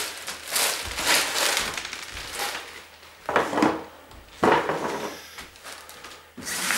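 Rustling, crunching and clattering of small household items and packaging being handled and thrown out, in several irregular bursts.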